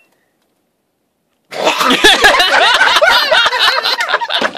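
About a second and a half of silence, then loud laughter from several people breaking out and continuing.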